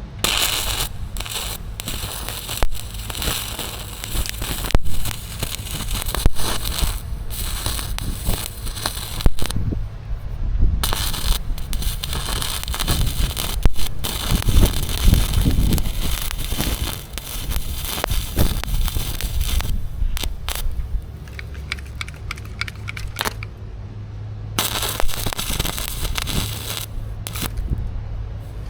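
Arc welding crackling steadily as beads are laid, stopping briefly about ten seconds in and again about two-thirds of the way through, with a steady low hum underneath.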